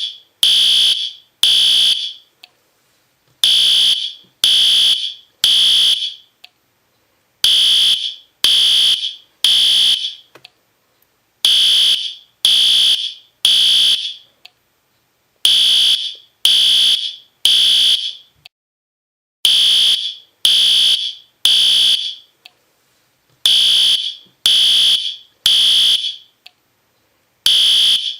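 System Sensor P2R fire alarm horn strobe sounding in the temporal-three evacuation pattern: three loud half-second horn blasts, then a pause of about a second, repeating about every four seconds. It is a harsh high-pitched horn tone, very loud.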